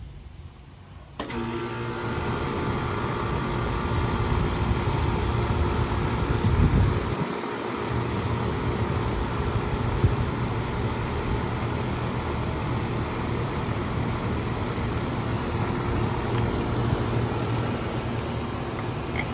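1986 Comfortmaker Deluxe Energy Saver heat pump starting up in cool mode: about a second in, the Bristol compressor and outdoor fan kick on suddenly, then settle into a steady running hum with fan air noise. There is a brief low swell about six seconds in and a single click near ten seconds. The condenser fan is running backwards, blowing air out the sides.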